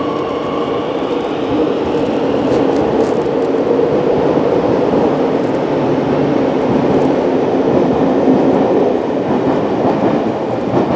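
Madrid Metro Serie 8400 (first batch) trains running past the platform: a steady rumble of wheels on rail that grows louder through most of the stretch. A high whine fades out about a second in.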